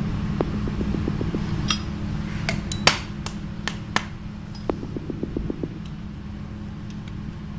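Hand tools working on an electric motor's end cover: a few sharp knocks and metal clinks, with mallet taps in the middle, and two short runs of quick light ticking, over a steady low hum.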